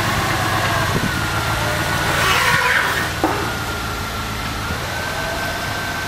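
Cadillac Northstar 4.6 L V8 running just after starting while the car is backed down off drive-on ramps. A steady thin whine rides over the engine, the sound grows louder for a moment about two seconds in, and there is a single click about three seconds in.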